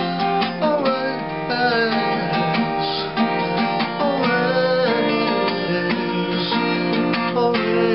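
Acoustic guitar strummed and picked in a steady run of rapid strokes, some notes sliding in pitch.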